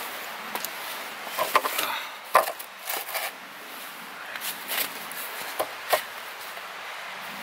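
Firewood being chopped by hand: several sharp blade strikes into wood, unevenly spaced.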